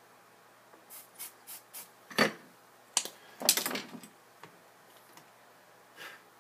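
Handling noise at a soldering bench: a few light ticks, then a sharp knock and a short clatter of small hard objects as the soldering iron is put down and the device's enclosure is picked up and handled.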